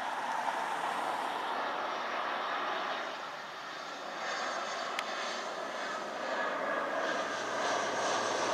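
Jet engines of an Airbus A320-family airliner on final approach with its landing gear down: a steady rushing drone that dips briefly partway through, then grows louder toward the end as the aircraft comes closer.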